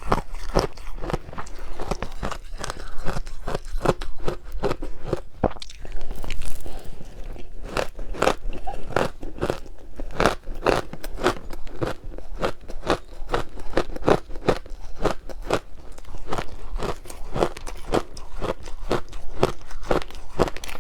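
Close-up crunching and chewing of powdery matcha-dusted ice, a quick run of crisp, squeaky crunches several times a second.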